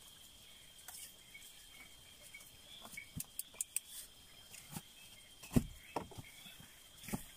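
A steady high trill of night insects, with scattered clicks and rustles and two dull thumps in the second half as a person moves about and handles things in a small shelter.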